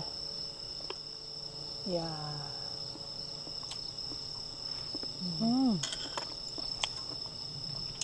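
Crickets trilling in a steady, unbroken high chorus, with a few light clicks and knocks over it.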